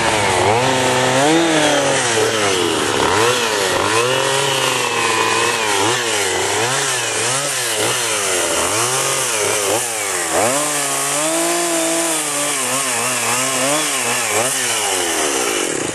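Gas chainsaw carving a block of red cedar, its engine revving up and down over and over as the bar cuts in and eases off. The engine stops near the end.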